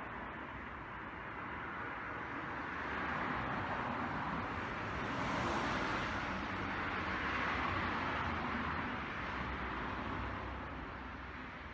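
Road traffic noise with no clear single event, swelling in the middle as a vehicle passes.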